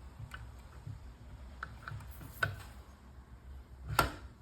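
Small clicks and knocks of a garage door opener's new gear and sprocket being handled and pushed into place in the opener housing, with a sharper knock about two and a half seconds in and the loudest one about four seconds in.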